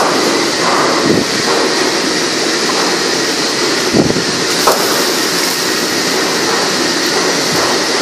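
Steady loud roar of a commercial gas stove's burner under a large stockpot, with a couple of soft knocks about a second in and about four seconds in.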